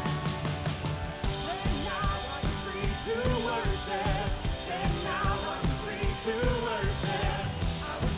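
Live worship band playing an upbeat song with a steady drum beat, with singing voices over it.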